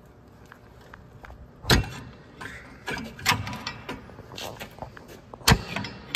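Two sharp metal knocks, one about a second and a half in and one near the end, with lighter metallic clicks and rattles between them: a pry bar striking a parking-brake shoe hold-down spring and cup to lock it onto its pin, the loose brake hardware clinking.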